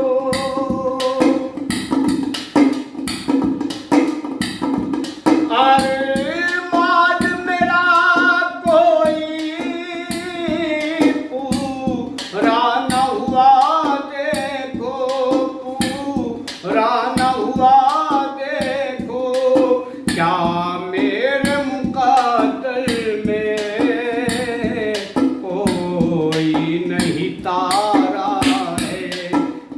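Hindi film-style song music: a bending, wavering melody line over a steady drum beat.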